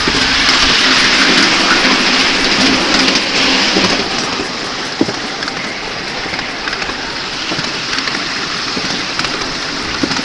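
Ride-on miniature steam train running along its track, heard from on board: a steady, loud hissing rush, strongest for the first four seconds, with one sharp knock about five seconds in.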